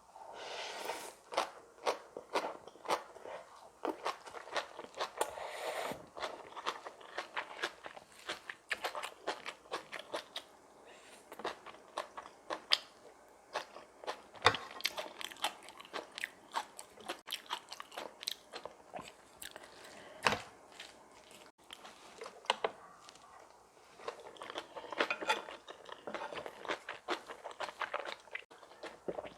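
Close-miked eating: someone chewing and crunching food, presumably the crunchy kimchi and bibimbap of the meal, with many sharp crunches and mouth clicks packed closely together.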